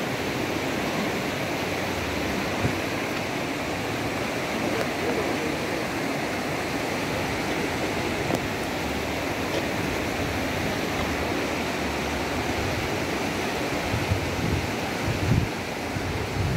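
Shallow river water rushing steadily over rocks and small rapids. A few low thumps come near the end.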